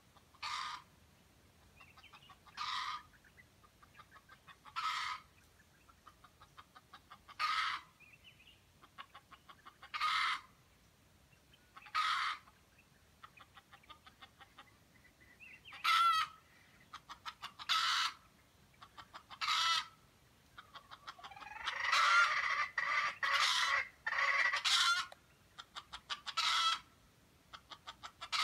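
Red junglefowl rooster giving short, stuttering crows about every two seconds, with faint rapid ticking between them. A denser, louder run of calls comes about three-quarters of the way through.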